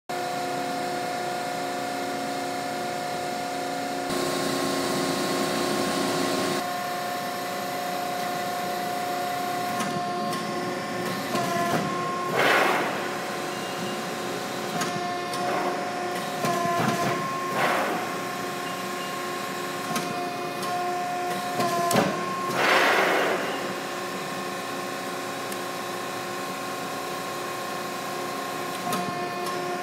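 Accurpress CNC press brake running, its hydraulic pump giving a steady hum. Near the middle the hum dips in pitch, and three louder rushing surges come about five seconds apart as the ram cycles.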